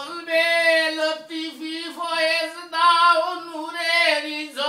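A woman singing a Bengali devotional song unaccompanied, drawing out long wavering notes over several phrases.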